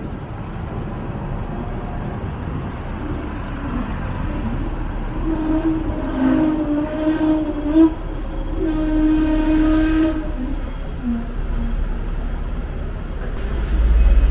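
Hong Kong double-decker tram running along the street with a steady rumble. A held tone sounds twice in the middle, each time for about two seconds. Low rumble swells near the end.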